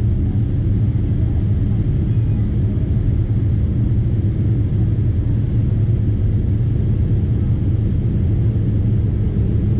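Steady low rumble of a Boeing 787 Dreamliner's GE turbofan engines and rushing air, heard from inside the passenger cabin while the airliner climbs after take-off.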